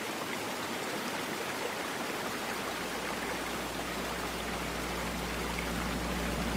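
Shallow stream running over stones, a steady even rush of water.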